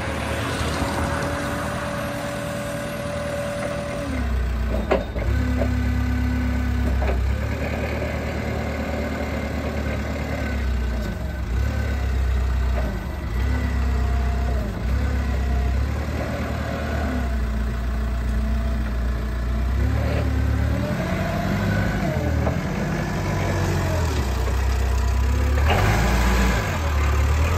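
Nissan LPG forklift running: a steady whine over the engine for the first four seconds, then from about four seconds the engine revs up and down repeatedly as the truck works and drives, with a few short knocks.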